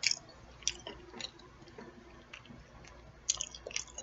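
A person chewing food up close with the mouth partly open, making wet smacking clicks: one at the start, a couple in the first second and a half, and a cluster near the end.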